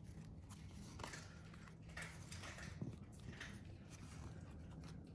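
Faint swishing of glossy 2020 Topps Series 1 baseball cards sliding over one another as they are flipped through by hand, with a soft swish about every half second.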